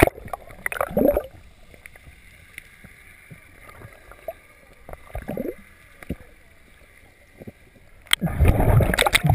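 Underwater sound heard through a GoPro housing: a low, muffled water hush with scattered faint clicks and a few short swooping sounds. About eight seconds in, a sudden loud rush of splashing water as the camera breaks the surface.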